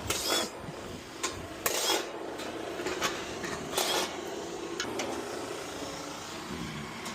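Metal tools and fittings clinking and clanking a handful of times as they are handled, over the steady hum of a refrigerant recovery machine pumping gas into a recovery tank.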